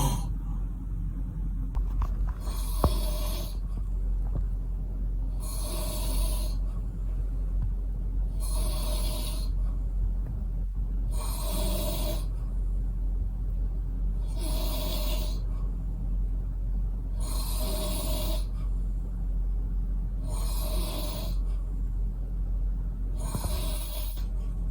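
A man snoring in his sleep, one loud snore about every three seconds, eight in all, over a steady low hum.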